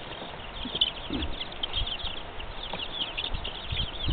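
Many small birds chirping in quick short calls, with a few low thumps near the end.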